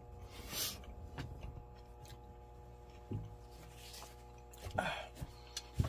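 Faint eating sounds in a quiet small room: soft chewing and a short breath, a brief murmured 'mm' near the end and a light tap just before it ends, over a faint steady hum.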